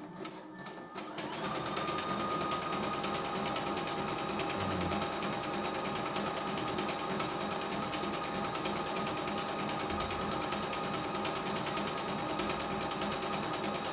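CNY E960 sewing and embroidery machine sewing a decorative stitch at a steady, fairly fast speed: rapid even needle ticking over a faint motor whine, getting up to speed about a second in.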